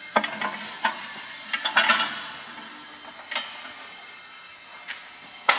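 Sharp metal clinks and knocks, six or so spread a second or more apart with a quick cluster near two seconds in, as a steel hammer-union nut is handled at the thread-cleaning canister, over a faint steady hiss.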